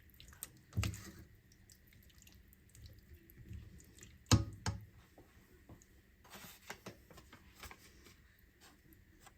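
A pot of chili being stirred with a spoon: wet squelching with a few sharp knocks of the spoon against the pot, the loudest about four and a half seconds in.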